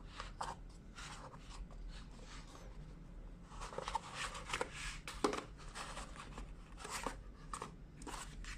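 Handling noise from a smartphone retail box being opened and its contents handled: scattered soft clicks, taps and cardboard or paper rustles, busiest around the middle.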